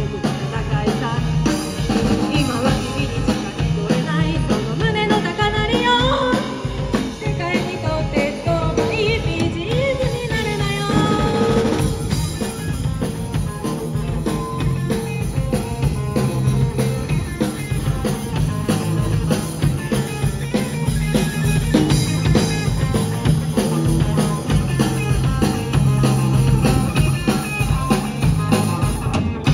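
Live rock band playing: drum kit, electric guitars and bass guitar through amplifiers. A sung vocal line runs over the first part and drops out about twelve seconds in, leaving the band playing on.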